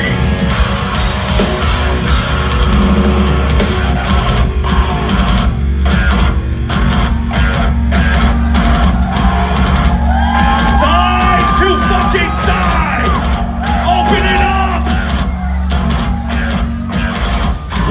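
Heavy metal band playing live and loud: distorted electric guitars over deep bass and drums, recorded from the crowd. About ten seconds in, a higher bending line rises over the riff.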